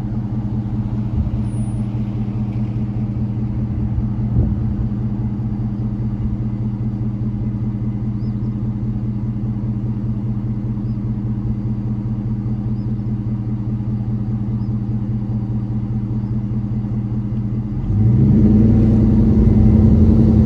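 Car engine running steadily at a low idle. About eighteen seconds in, its note rises and grows louder as it revs up.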